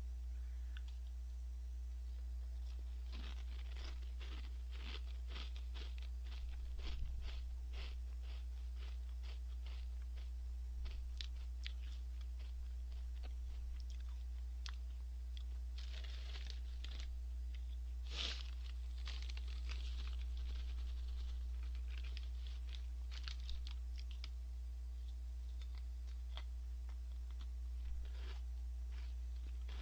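Gorebap whale-shaped snack crackers being chewed: irregular crisp crunches, heavier in a few clusters, over a steady low hum.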